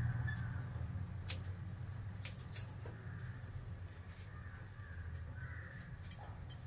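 Hairdressing scissors snipping through long hair: a few short sharp clicks, some in quick clusters, over a steady low hum.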